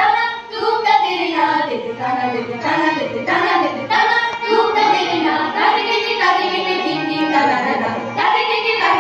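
A group of school students singing a melody together into microphones, accompanied by a harmonium and tabla.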